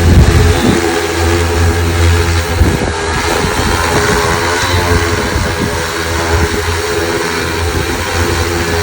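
Super X 2.0 agricultural spraying drone flying on a test flight after maintenance: its propellers make a steady low hum with several tones stacked above it. Low rumbles come near the start and again about three seconds in.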